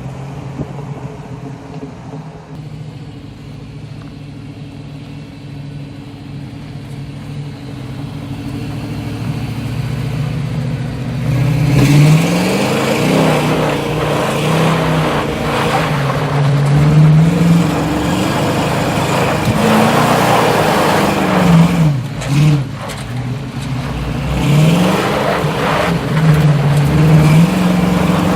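1962 Dodge Power Wagon's engine running as the truck drives: a steady low hum that grows louder, then from about halfway its pitch rises and falls again and again as it revs and shifts.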